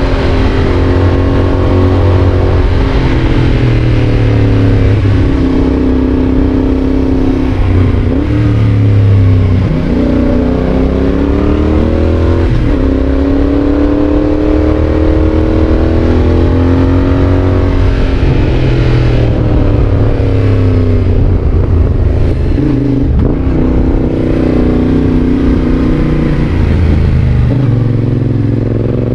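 Yamaha Tracer 7's 689 cc parallel-twin engine through a GPR exhaust, under way, its revs climbing and dropping again and again as it goes through the gears.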